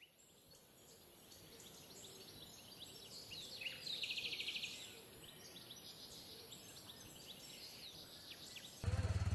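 Faint forest ambience: birds chirping over a steady high-pitched hiss, with a fast trilling call about four seconds in. Near the end it cuts abruptly to a louder low, pulsing engine-like sound.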